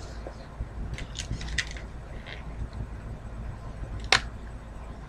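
A few scattered light clicks and taps of hands handling small objects while a fidget spinner is being got out, the sharpest about four seconds in, over a low steady hum.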